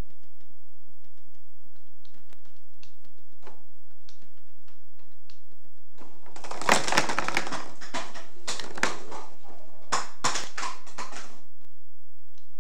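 A tower of plastic speed-stacking cups toppling onto a table: a quick run of clattering plastic knocks that begins about six seconds in, loudest at first, and goes on for about five seconds as the cups fall and scatter, with a few last clatters near the end.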